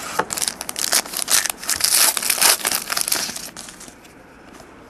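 Crinkling and tearing of a trading-card pack wrapper being handled and opened, a dense run of crackles that is busiest about two seconds in and dies away after about three and a half seconds.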